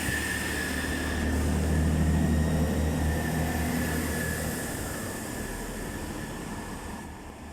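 Class 165 diesel multiple unit pulling away: a low diesel engine drone with a thin steady whine above it, swelling about two seconds in, then the drone drops away and the sound fades as the train draws off.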